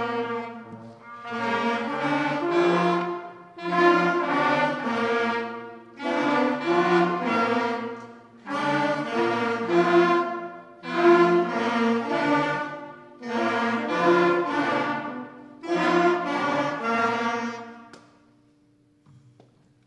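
Beginner school concert band (clarinets, flutes, saxophones, brass and percussion) playing a scale-pattern warm-up together in a string of short phrases about two seconds long with brief breaks between them. The last phrase fades out about 18 seconds in.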